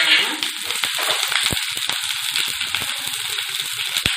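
Chopped onions and green chillies sizzling in hot oil in a stainless-steel kadai, a steady hiss with a couple of sharp pops, one about a second and a half in and one near the end.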